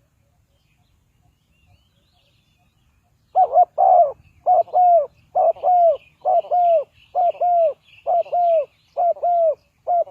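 A dove cooing: after about three seconds of quiet it gives a run of about nine quick paired coos, each note sliding down in pitch. Faint chirping sounds behind it.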